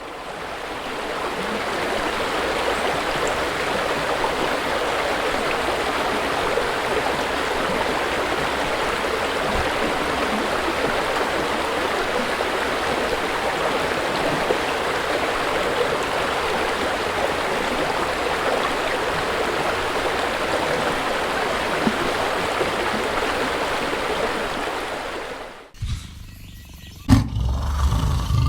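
Steady rushing of flowing river water, fading in at the start and cutting off sharply near the end. In the last couple of seconds a louder, deeper sound begins.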